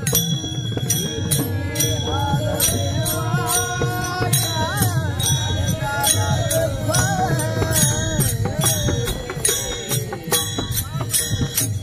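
Devotional kirtan music: a voice sings a long, winding melodic line over a steady drone, with small hand cymbals struck in a regular beat and a drum underneath. The singing line fades out near the end while the cymbals keep time.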